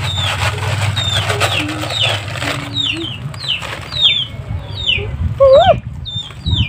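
Birds chirping over and over, short high chirps falling in pitch, about two a second. A little over five seconds in, the cat gives a single short meow that rises and falls, the loudest sound.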